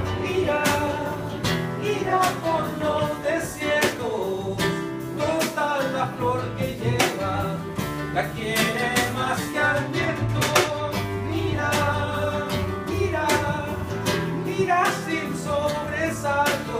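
Live band playing an instrumental passage of a song: acoustic guitar and other instruments over a steady beat.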